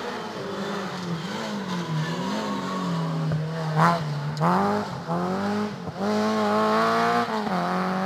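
Rally car's engine revved hard through a corner, its pitch climbing and dropping several times with throttle and gear changes. A single sharp crack a little before the middle is the loudest moment.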